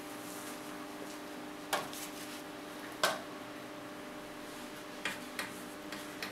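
A handful of sharp, separate metallic clicks, about five in all with the loudest about three seconds in, as pliers work a wire joint on an oil-heater thermostat's terminal. A steady low hum runs underneath.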